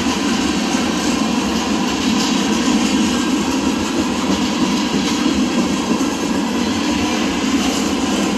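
Freight train cars (boxcars and a tank car) rolling steadily past at close range: the continuous noise of wheels on the rails, with no change in level.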